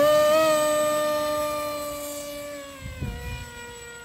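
Electric motor and propeller of a Sky Surfer RC glider whining at high throttle on takeoff, holding a steady pitch, then fading as the plane climbs away, with a slight drop in pitch about three seconds in.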